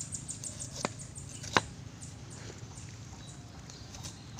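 A large knife cutting the skin off a whole pineapple: small crackling ticks as the blade goes through the rind, with two sharp clicks about one and one and a half seconds in.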